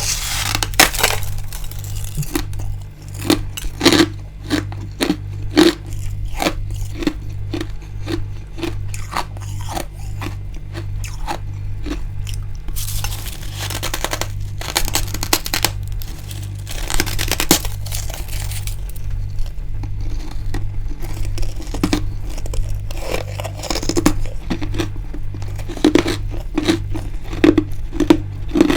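Crunching and chewing of freezer frost: many sharp, crisp crackles over a steady chewing rhythm.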